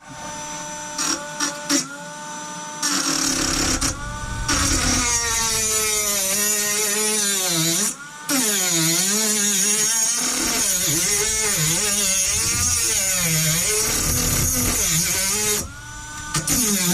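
Cordless rotary tool with a heavy-duty cutting disc grinding into a steel padlock: a high motor whine that sags and recovers in pitch again and again as the disc bites under load. It starts in a few short bursts, then runs steadily, cutting out briefly about eight seconds in and stopping near the end before a couple more short bursts.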